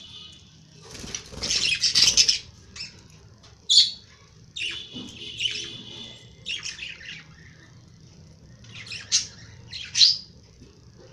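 Young lovebirds calling in short, high-pitched chirps and squawks, with a noisy flurry about a second in and two sharp calls near the end.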